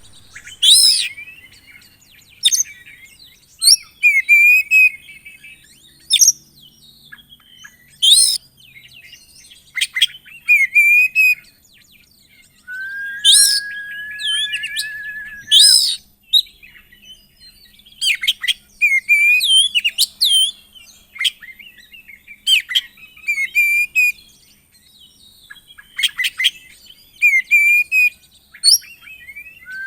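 Oriental magpie-robin singing loudly: sharp, sweeping call notes repeated every second or two, mixed with chattering phrases. Near the middle there is a long buzzy trill, held for about three seconds.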